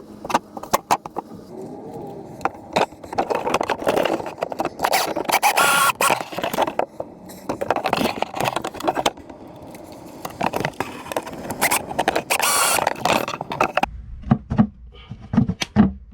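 Busy scraping, rattling and clicking of hands-on build work. About 14 seconds in it gives way to quick, evenly spaced low knocks.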